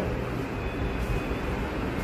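Steady low rumbling background noise with no clear event in it.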